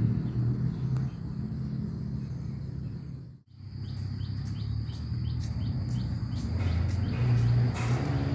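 Birds chirping outdoors in a run of short falling chirps, about two a second, over a thin steady high tone in the second half. Under them runs a steady low engine rumble that grows stronger near the end.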